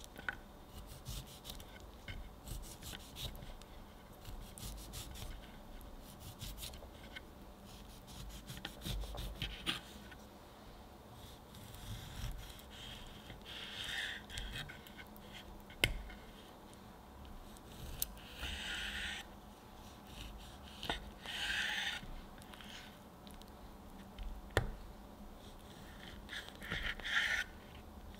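Kitchen knife cutting a peeled orange into segments on a wooden cutting board: soft scratchy slicing through the flesh and membranes comes in several short strokes, with a few sharp taps of the blade on the board.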